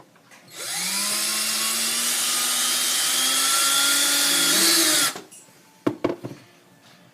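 Power drill running for about four and a half seconds as it drills the bottom ear-mounting hole through the stormtrooper helmet's ear and shell; its pitch rises slightly, then it stops suddenly. Two sharp knocks follow near the end.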